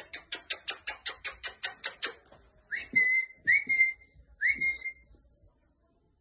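A quick run of about fifteen short clicking squeaks over two seconds, then three short whistles, each rising then holding steady, the kind used to call a puppy.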